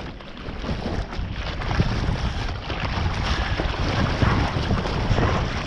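Water rushing and splashing over the nose of a surfboard as it moves through a wave, growing louder about a second in, with wind buffeting the microphone.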